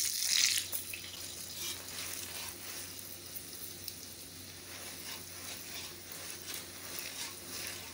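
Paratha frying in ghee on a hot tawa: a louder hiss in the first half-second, then a steady sizzle with faint crackles.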